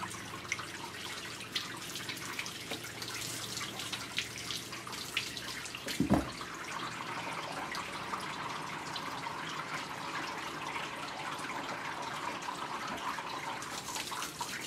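Water running from a grooming-tub spray nozzle, splashing on a wet Maltese's coat and dripping into the tub, with small drip clicks and a single thump about six seconds in.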